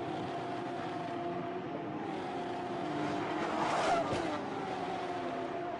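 Engines of a pack of Porsche 911 race cars running at speed, their tones sliding in pitch as they go by. About four seconds in there is a brief louder burst of crash noise as cars collide and spin.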